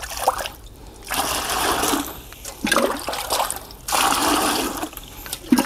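Water poured from a clear jug into a white plastic bucket, splashing into it. There are two pours of about a second each, one about a second in and the other about four seconds in.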